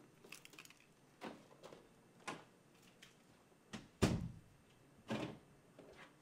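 A door being opened and handled: a small rattle of latch clicks, then a few scattered knocks and one heavy thud about four seconds in.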